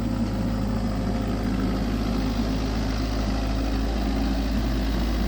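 Truck engine running steadily, a continuous low drone.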